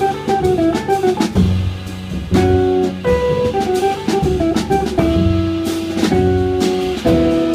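Free-jazz trio playing live: an amplified hollow-body archtop guitar picking melodic lines, a plucked double bass and a Gretsch drum kit with cymbals.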